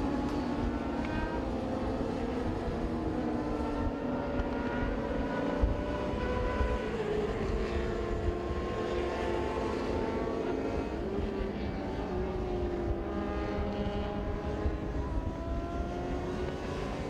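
Several distant motorcycle engines running at once on the circuit, a steady drone whose pitches slowly rise and fall as the bikes change speed.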